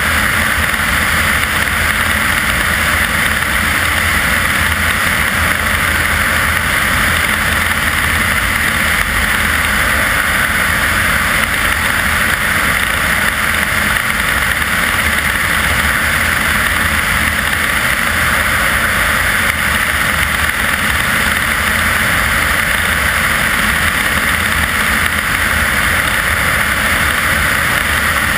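Steady, unchanging rush of airflow and engine drone from a light single-engine propeller airplane in flight, picked up by a camera mounted outside on the airframe, so wind on the microphone dominates.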